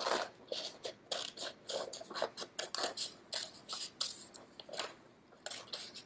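Scissors snipping through black construction paper in a quick run of cuts, about three or four a second, with a brief pause near the end.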